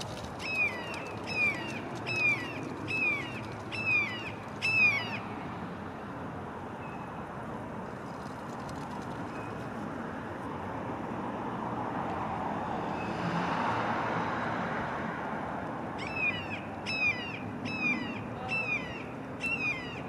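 Juvenile red-shouldered hawk giving repeated falling squeals, a little under one a second: a run of about six at the start and another of about five near the end. Between the two runs the calls stop and a steady rushing noise swells and fades.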